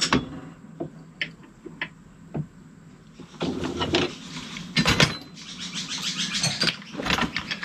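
Steel tools clinking and clattering as a jaw puller is handled and fitted onto a bearing separator: scattered light clicks at first, then busier metal clatter with a few sharp knocks about five seconds in.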